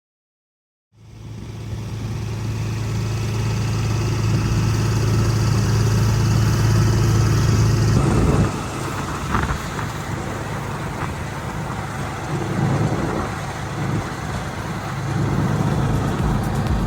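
An engine running steadily with a strong low hum, starting about a second in. About eight seconds in it drops a little in level and turns rougher and less even.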